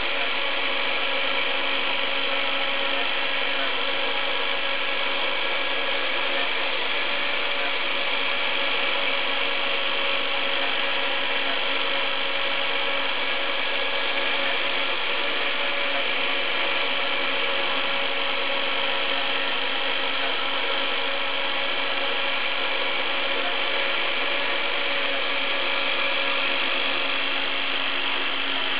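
Router motor serving as the spindle of a homemade CNC router, running steadily at high speed as its bit mills the workpiece. It is an even, unbroken high whine with several fixed tones.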